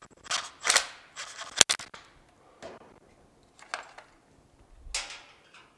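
A few short rustles and scrapes of wiring being handled and straightened, with one sharp click about a second and a half in.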